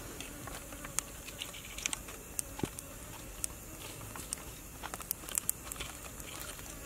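A knife and fingers cutting and prying apart a cooked king crab's shell and body: scattered small clicks, snaps and crackles of shell, with soft wet tearing between them.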